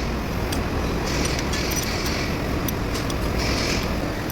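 Steady low rumble of a running engine, with a few light metallic clicks over it.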